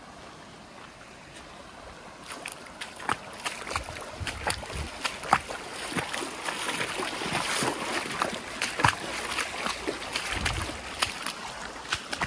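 Hiking boots splashing step after step through shallow water running over a dirt trail. The splashing starts about two seconds in as a quick, uneven run of wet slaps and sloshes.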